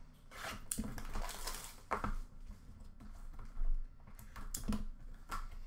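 Cardboard trading-card box being opened and its cards slid out by hand: irregular rustling and scraping, with a few light knocks about a second, two seconds and nearly five seconds in.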